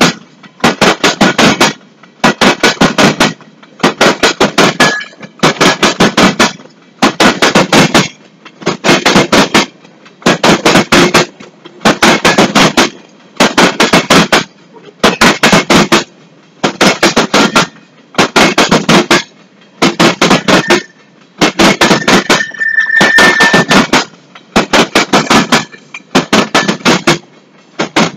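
Empty freight gondola cars rolling past, their wheels clattering over the rail joints in regular bursts of clicks about once a second as each car passes. A brief high squeal from the wheels shows up about two-thirds of the way through.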